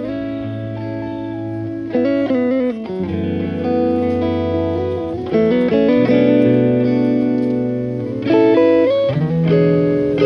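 Background music led by plucked guitar, with notes changing every second or so.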